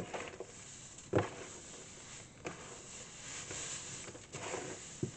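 Hands stirring compost and perlite in a plastic tub: a gritty rustling and scraping, with a sharp knock about a second in and a couple of smaller ones.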